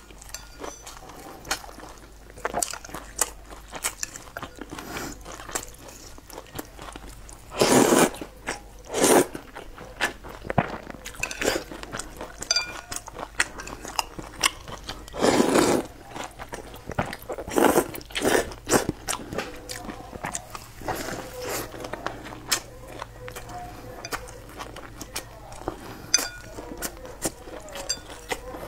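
Close-miked eating sounds: steady chewing with crunching and wet mouth clicks, broken by several loud slurps of noodles and broth, the biggest about a third of the way in and again just past halfway.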